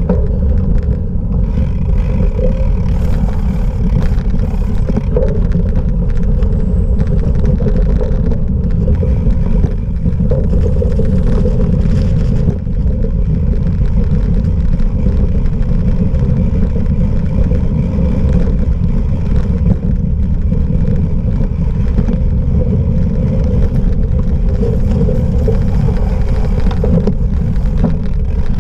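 Cyclocross bike being ridden in a race: a loud, steady low rumble of wind buffeting and rolling noise on the rider's camera microphone, with a few faint clicks and rattles.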